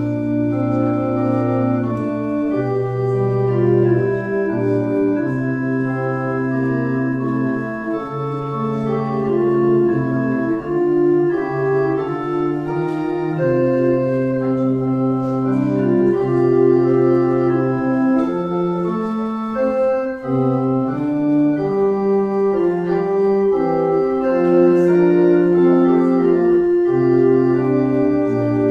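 Organ playing slow, sustained chords over long-held bass notes, the harmony shifting every second or two.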